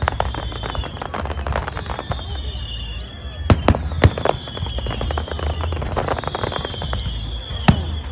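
Aerial fireworks bursting: a run of sharp bangs and crackles, the loudest about three and a half to four seconds in and again near the end. A high, slightly falling whistle carries on under most of it.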